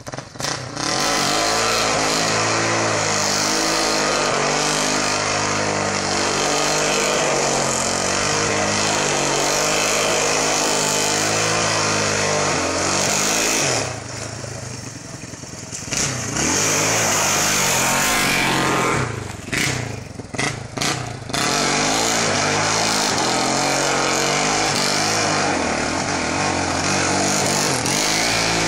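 Quad (ATV) engine revving hard and held on the throttle while spinning doughnuts, its pitch wavering up and down. It backs off about halfway through, and again in a few short dips a few seconds later, before opening up again.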